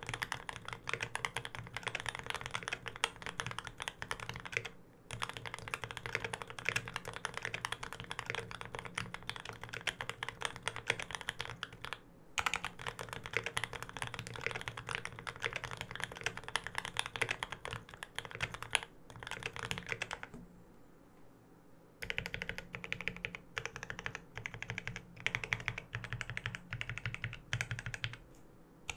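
Fast, continuous typing on a custom mechanical keyboard with Krytox-lubed Gateron Ink Black linear switches on an aluminum plate and GMK keycaps, giving a dense run of keystroke clicks. The typing stops briefly a few times and pauses for about two seconds a little past two-thirds of the way through.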